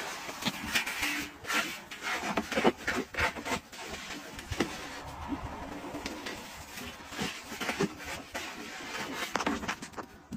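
Washing machine drum tumbling a load caked with wet detergent powder: irregular rubbing, soft knocks and swishes as the clumped laundry turns over against the perforated drum.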